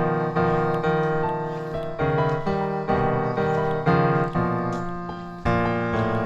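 Background piano music: chords and melody notes struck and left to ring, changing about once or twice a second.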